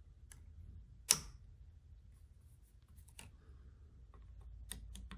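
A few short, sharp clicks and taps from scope rings being adjusted by hand on a rifle's rail mount, the loudest about a second in, over a faint low hum.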